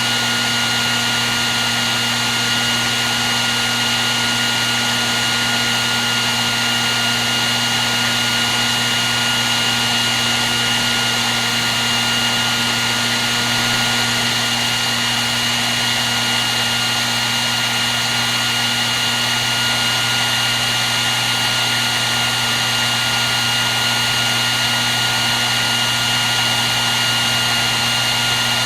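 Hair dryer running steadily without a break: an even rush of air over a constant motor hum, with two thin, steady high whining tones above it.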